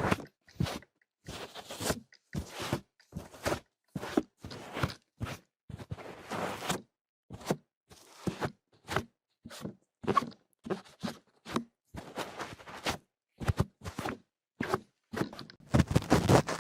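Close-miked ASMR trigger sounds: a series of short crackly noises, one or two a second, each cut off by brief silence.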